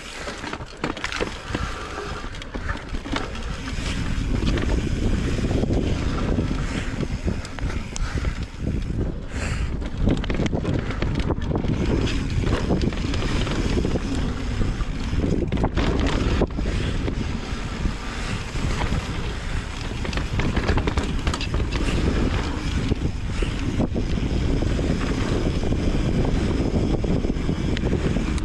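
Wind rushing over the microphone and mountain bike tyres rolling over a dirt trail while riding downhill, with frequent knocks and rattles from the bike on rough ground. The noise builds over the first few seconds, then holds steady.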